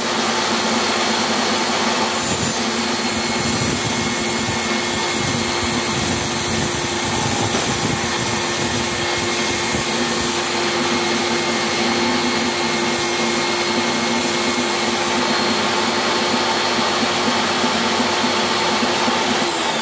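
Table saw with a 24-tooth alternating top bevel blade ripping acrylic glass sheets: a steady, loud noise of motor and cutting with a few held tones from the spinning blade.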